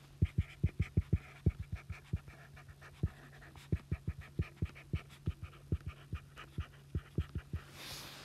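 Stylus tip tapping on a tablet's glass screen while handwriting Korean, a quick irregular run of short taps in clusters, one per pen stroke, over a steady low hum.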